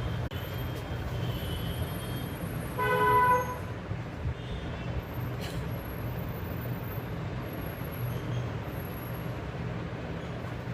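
Steady low background rumble, with a single short vehicle-horn toot about three seconds in.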